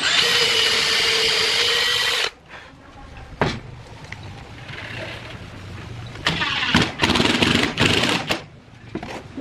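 Electric hand drill's motor running at speed with a steady high whine, cutting off suddenly after about two seconds. A sharp knock follows, and near the end come a few seconds of loud, rough tool noise in uneven bursts.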